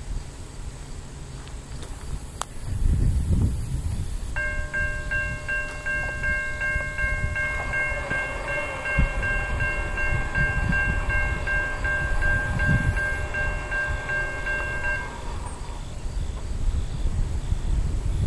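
Distant diesel locomotive air horn sounding one long multi-note chord for about ten seconds, from an approaching freight train not yet in view, over a low rumble of wind on the microphone.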